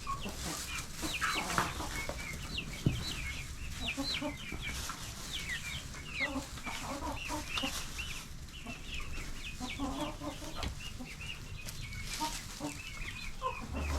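A flock of backyard chickens clucking, with many short high calls scattered throughout.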